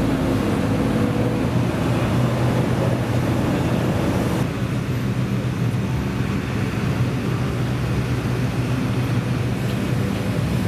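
Construction machine's engine running steadily with a low hum. The higher hiss drops away about four and a half seconds in.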